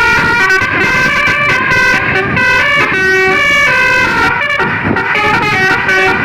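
Indonesian bus "basuri" telolet horn, a multi-trumpet musical air horn, playing a tune without pause: chords of several tones changing pitch a few times a second, over a low rumble.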